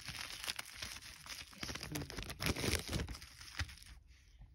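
Clear plastic packaging bag crinkling and crackling as it is handled and pulled open. The noise is strongest in the middle and dies down near the end.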